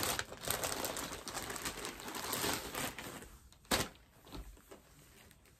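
Packaging and clothing rustling and crinkling as an outfit is unpacked and handled, for about three seconds. Then a single sharp click, after which only faint handling sounds remain.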